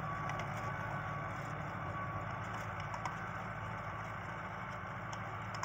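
Fiat 640 tractor's diesel engine running steadily under load as it drives a rotary tiller through the soil, fading a little as it moves away.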